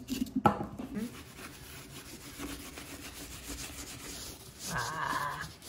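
Kitchen knife sawing through a pumpkin's rind and flesh while a jack-o'-lantern mouth is carved: a faint, steady rasping scrape of short strokes. A short pitched sound lasts about a second near the end.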